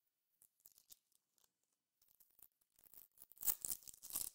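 The foil wrapper of a 2022 Topps Formula 1 trading card pack being torn open: a crinkly ripping in the second half, loudest in two spells near the end. It comes after a few light rustles and clicks of cards being handled.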